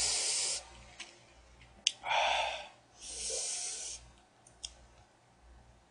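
A man breathing hard through his mouth: three breathy rushes of air about a second apart, with a couple of small clicks between them.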